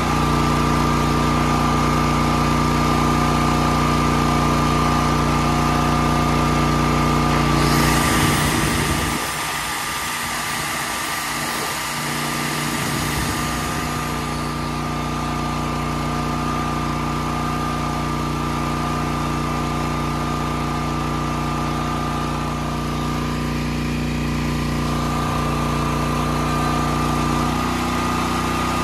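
Portable generator engine running steadily at constant speed, with a steady whine above its hum. About eight seconds in, a hiss lasting several seconds briefly covers it.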